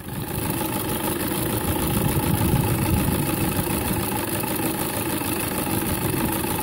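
Twin-cylinder vertical steam engine of a 1:5 scale model steam lorry running steadily under load, a fast even beat of exhaust and valve gear over a steady hiss, with the engine working hard.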